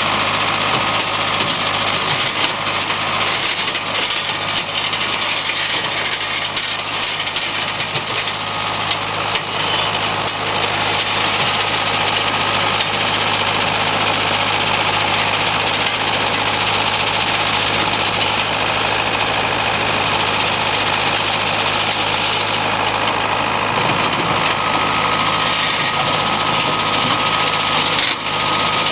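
Atlas Copco ROC 642HP crawler drill rig's diesel engine running steadily, with a steady high whine, as the rig crawls on its tracks up onto a hook-lift truck's flatrack.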